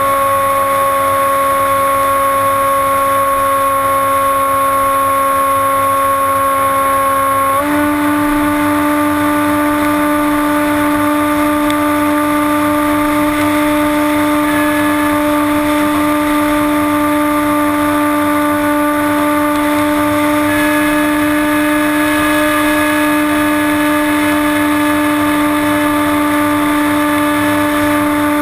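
Brushless electric motor and propeller of a HobbyKing Bixler RC glider, heard from a GoPro mounted on the plane in flight: a steady whine at constant throttle that steps up slightly in pitch about seven and a half seconds in, over a rush of air.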